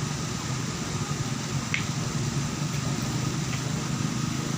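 Steady low hum with an even background hiss, and a few faint, short high clicks about halfway through and near the end.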